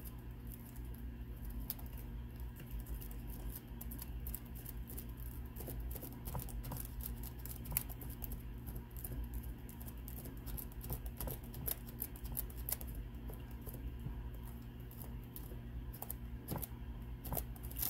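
Pencil eraser rubbing back and forth over the copper traces of a 1982–85 Chevrolet S10 gauge cluster's flexible printed circuit board, giving many small irregular scratchy clicks over a low steady hum.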